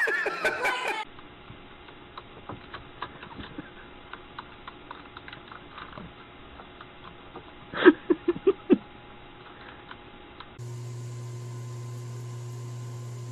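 Computer keyboard keys clicking irregularly as a cat paws and walks on them. A little past the middle comes a short run of about five louder quick pulses. Near the end the clicking gives way to a steady low hum.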